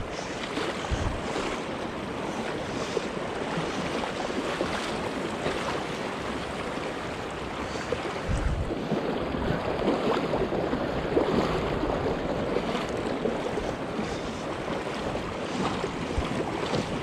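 Swollen, fast-flowing river water rushing steadily close to the microphone, with wind noise on the microphone and a couple of brief low thumps.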